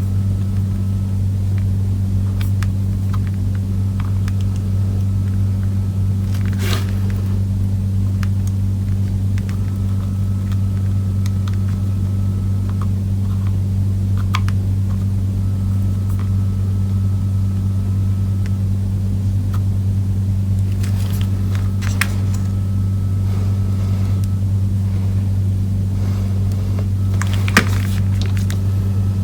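Steady low electrical hum from workbench equipment, unchanging throughout, with a few faint clicks and taps of hand soldering work.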